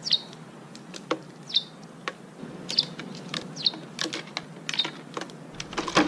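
Eurasian tree sparrows chirping: single short chirps about once a second, among many quick, light clicking taps.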